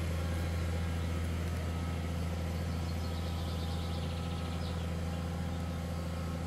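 Tractor diesel engine running steadily under load as it pulls a trailed land grader over soft soil. It is a low, even drone that fades slightly as the tractor moves away.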